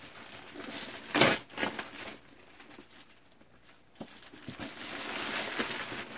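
Clear plastic packaging bag crinkling and rustling as it is pulled open and a padded seat cover is slid out of it. There is a sharp crinkle about a second in, a quieter stretch, then steady rustling near the end.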